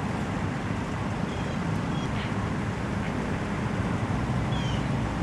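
Car running steadily, heard from inside the cabin: a low engine hum under an even noise, with no sudden sounds.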